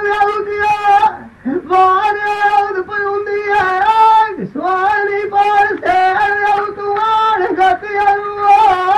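Punjabi dhola folk singing: a singer holds long, level high notes on drawn-out vowels, with a brief swooping dip in pitch between phrases a few times.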